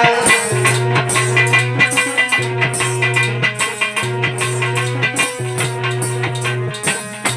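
Instrumental music with a steady, evenly repeating drum beat, bright rattling high percussion and long held low notes.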